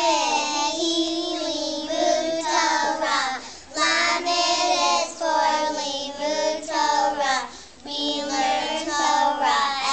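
A group of young girls singing a song together, in held sung phrases with two brief pauses between them.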